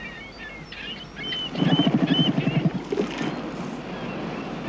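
Northern elephant seal giving a low, rattling guttural call for about a second, starting a second and a half in, with short high chirping calls scattered throughout.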